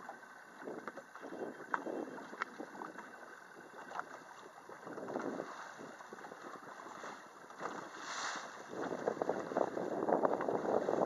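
Water splashing and sloshing against a boat's hull on open sea, with wind buffeting the microphone; the splashing comes in uneven swells and grows louder near the end.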